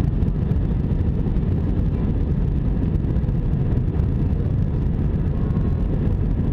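Steady low rumble inside an Airbus A320's cabin, the engines and airflow heard from inside.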